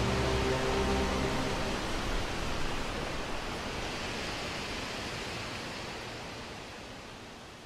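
A steady rushing noise, like a hiss, fades slowly away. Over it, the last notes of string music die out in the first second and a half.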